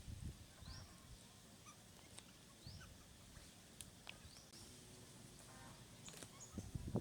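Faint short, high chirps rising in pitch, repeating every second or two, over low soft thumps and a few clicks.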